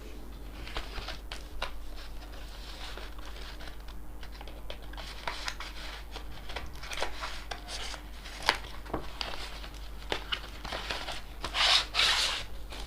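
Packaging being opened by hand: crinkling, tearing and rubbing with scattered clicks and handling knocks, and a louder rustle about a second before the end.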